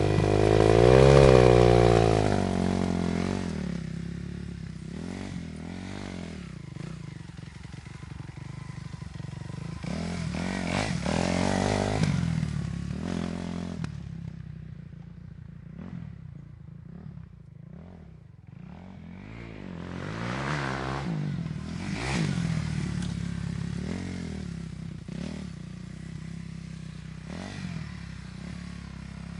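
Dirt bike engine revving and riding, its pitch rising and falling with the throttle. It starts suddenly and is loudest in the first few seconds, goes quieter and duller about halfway through, then grows louder again.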